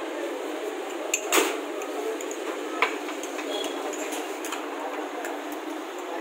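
Metal spoon clinking and knocking against a tall glass as a falooda is stirred, over a steady background hiss; a louder knock comes about a second and a half in.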